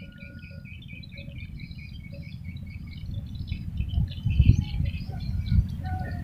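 Small birds chirping busily and continuously over a steady low rumble. A few low thumps stand out between about four and five and a half seconds in.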